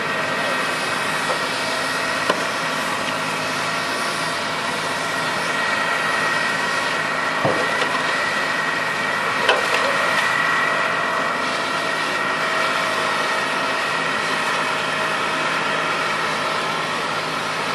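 Fire engine running steadily, with a constant hiss of water and steam over the burning car. A few brief knocks stand out, about 2, 7 and 9 seconds in.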